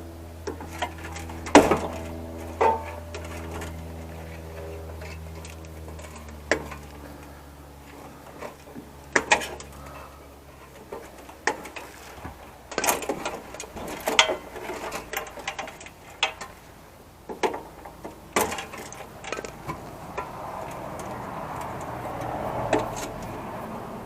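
Wire cutters snipping small connectors off computer cables, sharp clicks and snaps at irregular intervals with parts and wire being handled. A low steady hum fades out over the first ten seconds or so.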